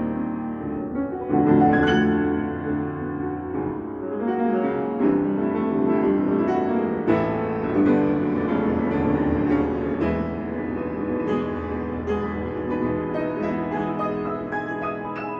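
Grand piano played solo: a busy passage of many quick notes and chords, with a few stronger accented chords along the way.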